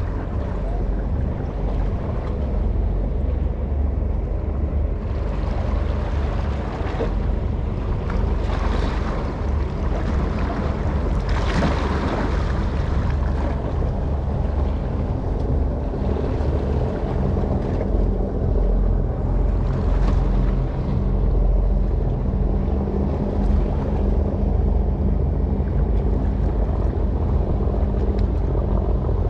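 Steady low rumble of a large ship's engine, with wind blowing on the microphone and a gust about a third of the way in.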